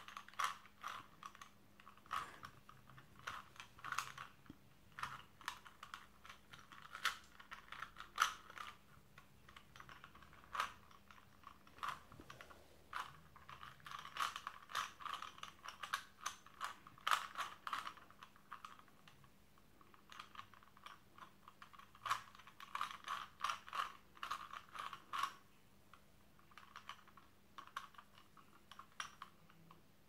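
A plastic 3x3 Rubik's cube being turned by hand: runs of quick clicks and clacks as its layers rotate, broken by short pauses between sequences of moves.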